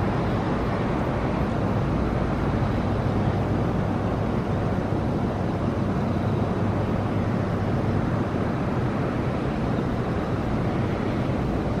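Aichi Loop Railway 2000 series electric multiple unit standing at the platform with its doors open, its on-board equipment giving a steady hum and rush.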